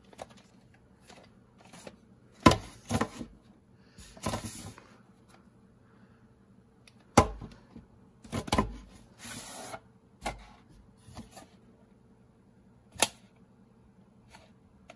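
A VHS cassette and its box being handled: scattered sharp clicks, knocks and short rustles as the box is turned and set down and the cassette is picked up. A faint steady hum runs underneath.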